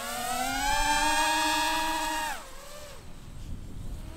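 FPV cinelifter drone's motors and propellers whining, rising in pitch as the throttle goes up, then dropping off sharply about two seconds in. The drop is the drone striking a rope line.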